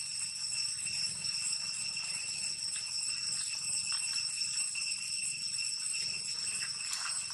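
Cicadas droning: a steady, unbroken high-pitched buzz that holds one pitch throughout.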